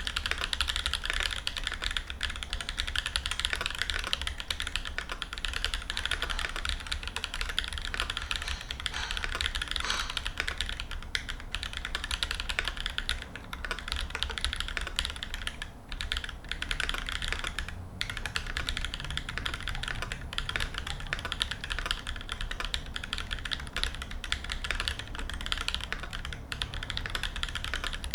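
Continuous typing on a Noxary 268 mechanical keyboard with Holy Panda tactile switches on a brass plate: a dense stream of keystroke clacks, with a couple of brief pauses a little past halfway.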